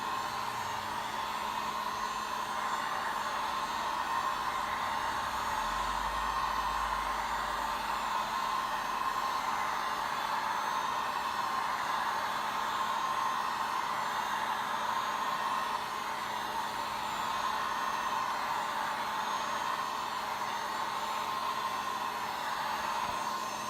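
Harbor Freight heat gun running steadily on its low setting, its fan blowing with an even whir and a faint hum, as it heats the glue under a glued RC tire.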